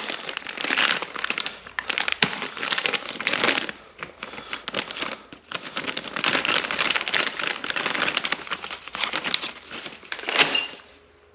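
Clear plastic packaging bags crinkling and rustling as they are handled, with a lull about four seconds in and a loud rustle just before the end.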